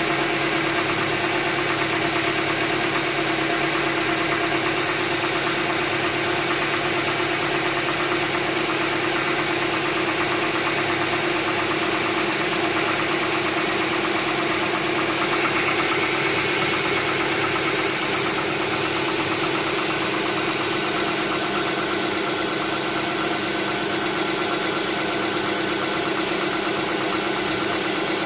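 2007 Hyundai Tucson's 2.0 16-valve four-cylinder engine running steadily at idle with the engine noise it makes after a morning start, which a mechanic puts down to the hydraulic tappets; the owner is not yet sure.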